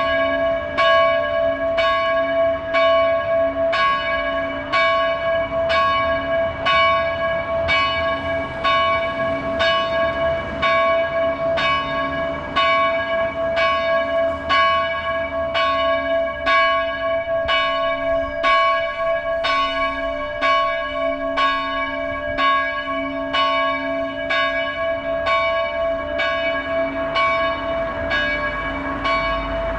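Church bell ringing in even strokes, about one a second, its hum carrying on between strokes: the noon ringing.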